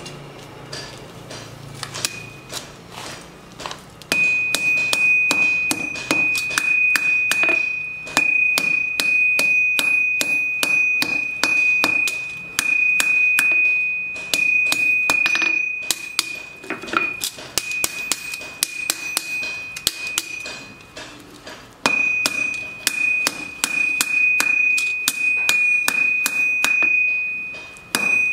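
Hand hammer beating a red-hot knife blank on a steel anvil, forging the blade. A few light knocks come first, then a fast, steady run of blows over a high, steady anvil ring. The blows stop for about a second about three quarters of the way through, then carry on.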